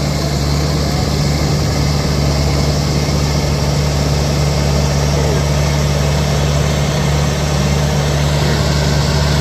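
Case crawler dozer's diesel engine running steadily with a deep, even hum as the machine drives slowly forward on its tracks.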